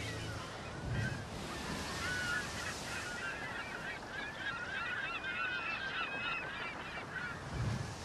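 A held musical chord stops just after the start. A flock of birds then calls steadily, many short overlapping calls, with a low bump about a second in and again near the end.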